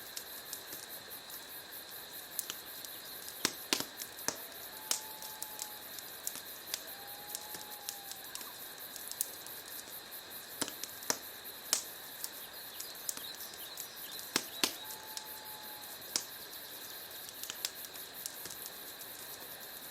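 Wood fire burning in a fireplace: irregular crackles and sharp pops over a soft steady hiss, with a few faint, brief whistling tones.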